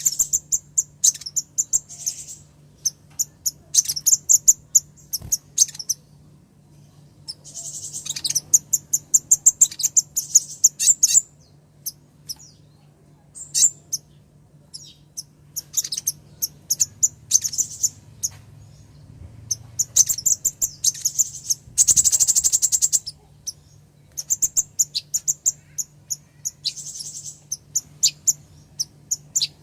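Female sunbird (the kolibri ninja) calling: bursts of rapid, high, sharp chirps a second or two long with short pauses between, one especially loud dense burst about two-thirds of the way through. This is the female's call that draws males. A faint steady low hum lies underneath.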